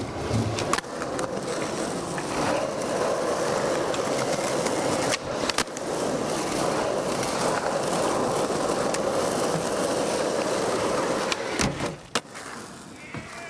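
Skateboard wheels rolling on asphalt with a steady grinding rumble, broken by sharp clacks of the board popping and landing about half a second in, around five seconds in, and again near eleven and a half seconds. The rolling drops away about twelve seconds in.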